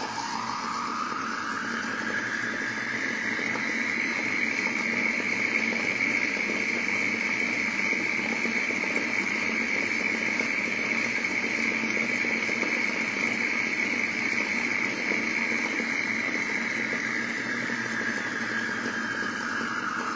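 Whine of a small vehicle's two 14.8 V DC motors, spun up by PWM from low to high: the pitch climbs over the first few seconds, holds steady at full set speed, then falls near the end as the PWM is stepped back down. A steady rushing noise runs underneath the whine.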